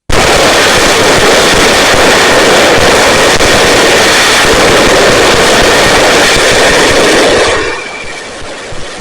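Firework going off in a loud, continuous hiss and dense crackle that starts abruptly, then gives way about seven and a half seconds in to a much quieter steady rush.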